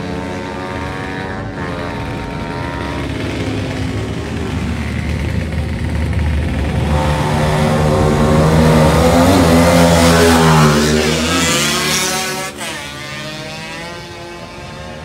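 Racing motorcycle's engine revving as it comes down the track, growing louder to a peak about ten seconds in, its pitch falling as it passes, then dropping away quickly.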